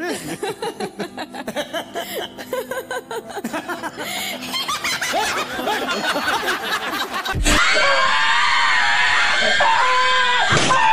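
Giggling and laughter, then about seven and a half seconds in a sudden loud, sustained scream: a man shrieking in fright at a jump-scare face on a computer screen.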